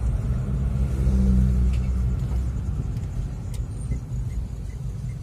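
Car engine and road rumble heard from inside the cabin while driving, swelling briefly as the car speeds up about a second in. A faint, regular ticking runs through the second half.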